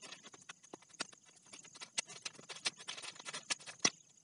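Stones clacking against one another as they are set down by hand on muddy ground: a string of irregular sharp knocks, several a second, some louder than others.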